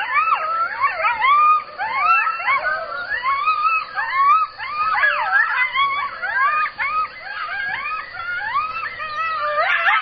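A pack of coyotes yipping and howling together: many high calls that quickly rise and fall, several voices overlapping at once, a little louder near the end.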